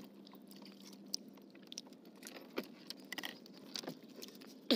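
Scattered faint clicks and rustles of a fishing net being hauled by hand into a wooden boat, over a faint steady low hum.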